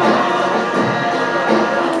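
A student rock band playing live, an instrumental stretch of a song with no singing heard.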